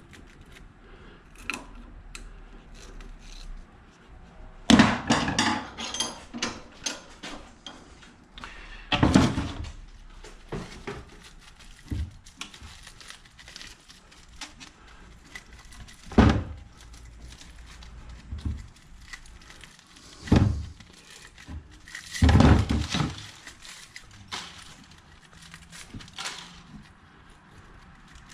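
Scattered thunks, knocks and clatter from scrap being worked apart by hand. The louder strikes come about five, nine, sixteen, twenty and twenty-two seconds in.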